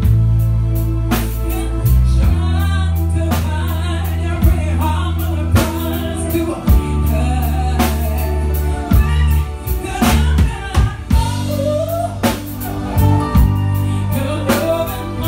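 Live band music: a singer over a drum kit with steady cymbal ticks and a deep bass line whose long held notes change every couple of seconds.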